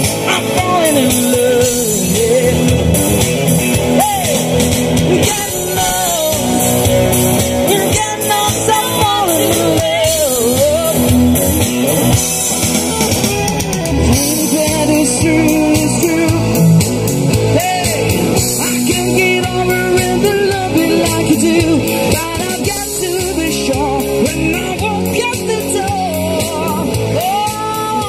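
Live band music through loudspeakers: an electric guitar playing with a singing voice carrying a gliding melody.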